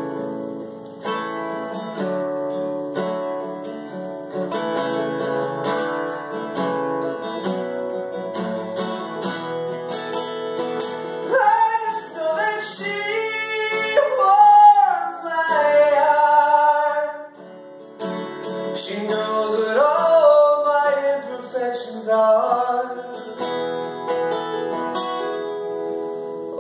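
Acoustic guitar strummed steadily, joined by a sung vocal line from about twelve seconds in to about seventeen seconds, and again around twenty seconds in.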